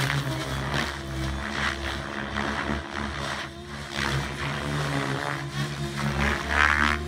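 Radio-controlled model helicopter flying aerobatics high overhead: its rotor and motor drone steadily, the pitch and loudness shifting a little as it manoeuvres.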